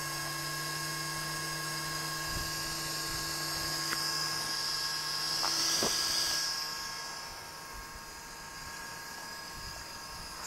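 A steady electric whine of several held tones from the powered-up electric RC buggy, with a hiss that swells and fades about six seconds in, where the lowest tones stop.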